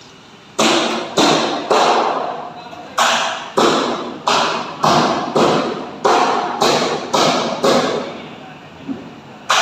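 Steady hammering, about two sharp blows a second, each ringing out briefly in a large open shed.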